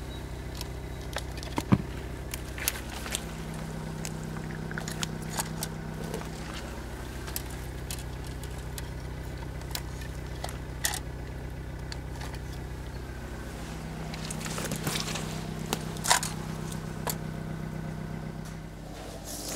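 Metal grabbers clicking and scraping, with weeds and dry stems crackling, as a dead rat is dragged out of undergrowth. Under it runs a steady low mechanical hum.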